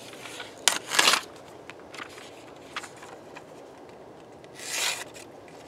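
Kizlyar Kalibr dagger's blade slicing through sheets of paper, giving short papery rasps about a second in and again near the end. This is an edge-retention check after rope cutting, and parts of the edge are starting to snag in the paper.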